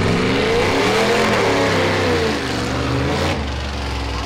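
Drag car doing a burnout: the engine is held at high revs with its pitch wavering up and down over the hiss of spinning rear tyres. About three seconds in, the throttle comes off and it drops to a steadier, lower engine note.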